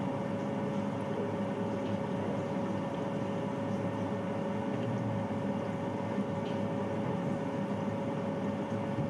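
Bathroom boiler (gas water heater) running: a steady hum with one clear steady tone over a low, even rushing noise.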